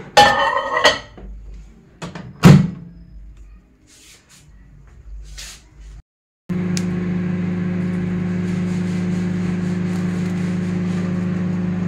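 A few knocks and clatters, one of them a loud sharp knock. Then, about halfway through, a click and a microwave oven running with a steady electrical hum as it heats food.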